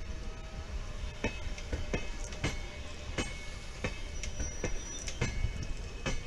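LHB passenger coaches rolling past, wheels clicking sharply over rail joints at uneven intervals over a steady low rumble. A brief thin wheel squeal comes a little past four seconds in.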